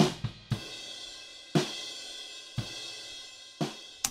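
Close drum room-mic recording of a drum kit played back solo: kick and snare hits, a quick cluster at the start and then about one a second, with a steady wash of cymbals between them. The kick, snare and cymbals are evenly blended, and the playback stops right at the end.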